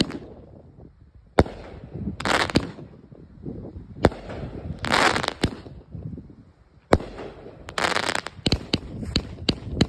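500g consumer firework cake firing its shots: a sharp launch thump every few seconds, each followed about a second later by a hissing, crackling break. Near the end comes a quick run of sharp pops.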